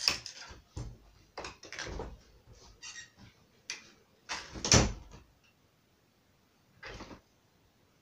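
Interior room door and its handle being worked: a string of short knocks and clicks, with one loud bang a little under five seconds in and a smaller knock near the end.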